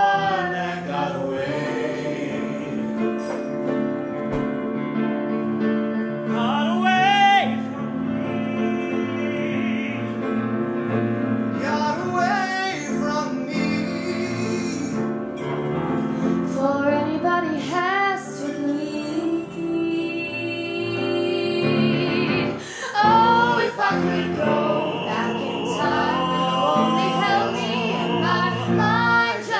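Male and female voices singing a pop ballad together, with vibrato on held notes, over piano accompaniment.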